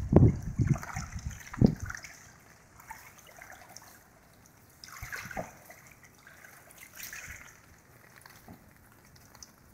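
Legs wading through knee-deep floodwater, the water sloshing and splashing with each step, heaviest in the first two seconds and fainter after.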